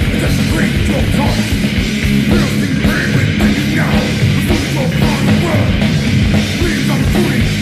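Heavy metal music from a 1988 demo tape: distorted electric guitars over fast, dense drumming.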